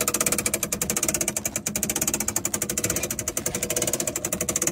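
A machine running with a rapid, steady knocking pulse.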